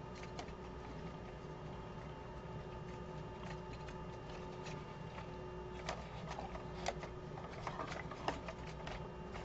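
Faint clicks and light knocks of hands handling a plastic 1/16 scale model half-track while fitting its tracks back on, a few sharper clicks in the second half, over a steady faint hum.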